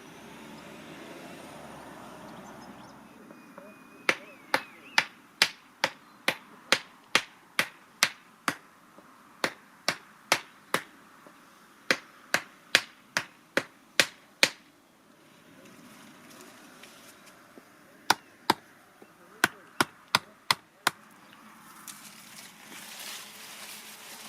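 Hammering: a steady run of sharp blows, about two and a half a second, then after a pause a shorter run of about seven more.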